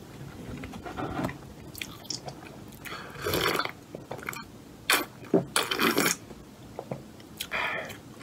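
Close-up eating sounds: quiet chewing, then several loud slurps of soup drunk straight from a bowl in the second half.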